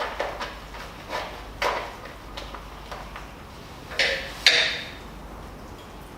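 Tools and hardware being handled: a handful of separate knocks and clicks, the two loudest about four and four and a half seconds in.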